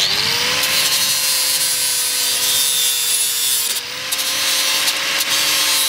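Angle grinder starting up with a rising whine and then running steady, grinding back the edge of a perspex windscreen panel that was cut too long for the frame's end cap. The sound dips briefly about four seconds in and then carries on.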